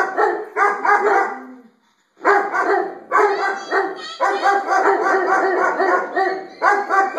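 Dog barking rapidly, several barks a second almost without pause, with a short break about two seconds in. It is barking up at a skylight, at its own reflection in the glass.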